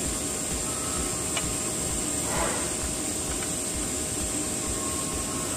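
TIG welding arc on a 6-inch stainless steel pipe root pass at 180 amps: a steady hiss and buzz, with a short crackle about two and a half seconds in.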